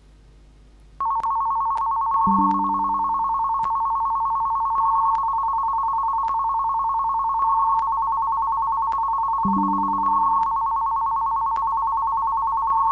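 Telephone ringtone for an incoming call: a steady, finely pulsing high two-note tone starts about a second in and keeps ringing, with a shorter, lower tone sounding twice over it.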